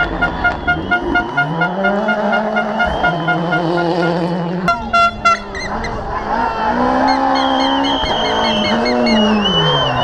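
Rally car engines revving hard, their pitch climbing and dropping with gear changes as the cars come up the stage. A sharp, brief burst of noise comes about five seconds in.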